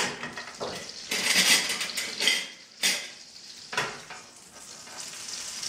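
Butter caramel sizzling in a copper pan while a fork is stirred and scraped over the pan bottom in a few short strokes.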